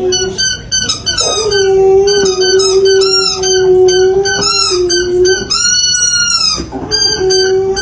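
A dog howling: a long, nearly steady low note held for several seconds, with many short high yips and whines over it and one high rising-and-falling howl about six seconds in.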